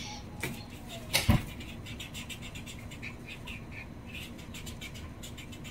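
Felt-tip marker squeaking and scratching across paper in quick short strokes while colouring in, with one thump about a second in.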